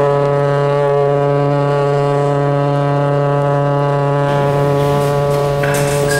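A ship's horn sounding one long, steady blast.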